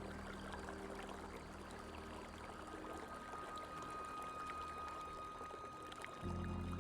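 Running water flowing steadily. Soft background music fades out near the start, and a low sustained chord comes back in about six seconds in.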